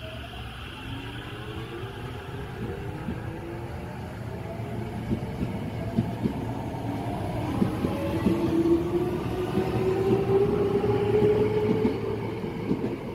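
Tobu Railway electric train pulling out of the station: its traction motor whine of several tones rises slowly in pitch as it accelerates, with wheels clicking over rail joints. It grows louder, then eases off about a second before the end.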